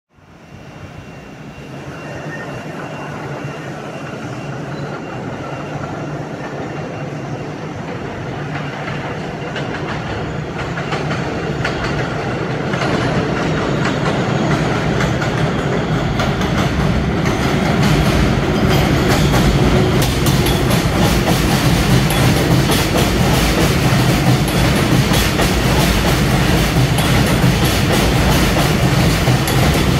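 NYC Subway R211A train approaching along the track, its rumble growing steadily louder, with wheel clicks over the rail joints coming thicker from about halfway through.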